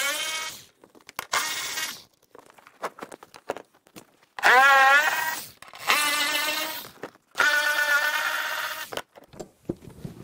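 Squealing metal from the car's stuck seat mounting hardware as it is worked loose: five drawn-out squeaks, each wavering in pitch.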